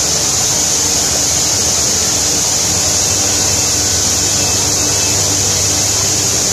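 Automatic spray-painting machine and its booth running: a steady, loud hiss with a low hum beneath.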